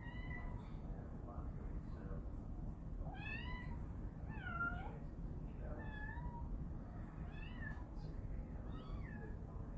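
A kitten meowing repeatedly: about six short, high meows a second or so apart, several rising and then falling in pitch.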